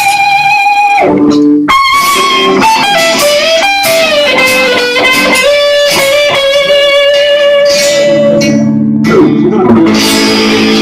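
Band music led by an electric guitar playing long held notes that bend and slide in pitch, over steady lower accompaniment.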